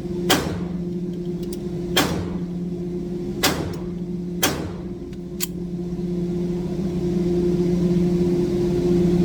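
A Taurus 1911 Commander-size .45 ACP pistol fires four shots, one to one and a half seconds apart, with a fainter sharp crack after them. A steady low hum runs underneath and grows louder in the second half.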